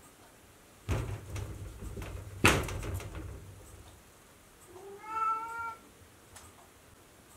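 A domestic cat meows once, briefly, about five seconds in. Before it come a dull thump about a second in and a sharp knock about two and a half seconds in, which is the loudest sound; both are the wooden sliding door rattling as the cat pushes through it.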